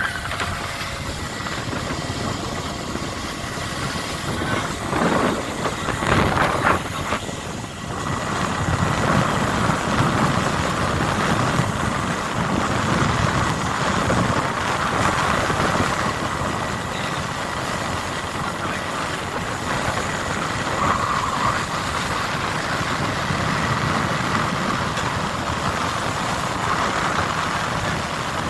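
A longline fishing boat's engine and deck machinery running steadily, with a few knocks about five to seven seconds in.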